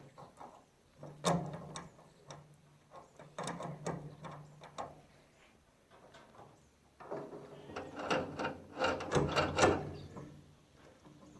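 Steel roller chain for a Case IH 3650 baler, its links clicking and rattling as the chain is worked along a sprocket by hand. The rattling comes in three spells, the last and loudest one near the end.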